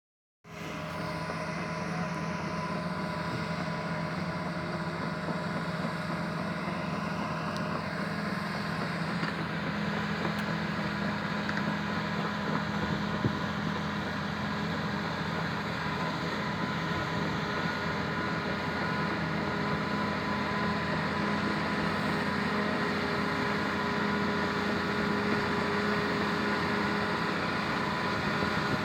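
Diesel engines of excavators running steadily, a constant mechanical hum.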